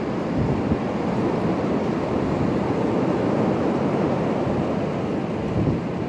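Damaging high wind, sustained around 30–45 mph with gusts of 60 mph and more, rushing through bare trees and buffeting the microphone: a steady, deep rush with no let-up, like a constant freight train.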